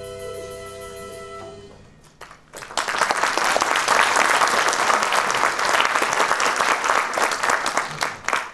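A held instrumental chord fades away, then an audience applauds from about three seconds in.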